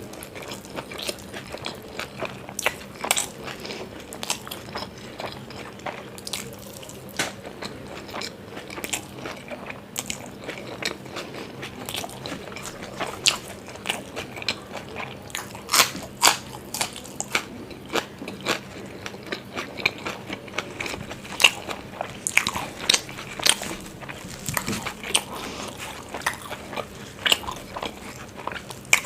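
Close-miked eating: a person biting and chewing parathas, with irregular crunches and mouth clicks several times a second.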